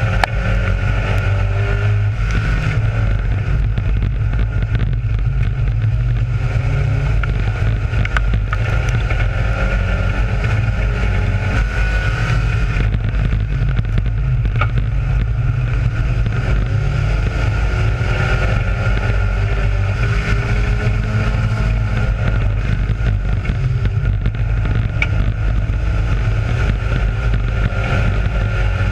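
Race car engine running hard at racing speed, heard from inside the cockpit, its note rising and falling slowly, with wind and rattle on the microphone.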